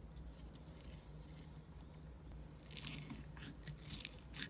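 Slime being handled and pressed, giving a few faint, short crackles in the second half.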